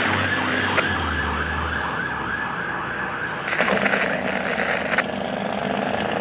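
Fire truck's electronic siren on a fast yelp, with the truck's engine rumbling low as it pulls away; the engine fades in the first two seconds. About three and a half seconds in, the siren sound turns harsher and steadier.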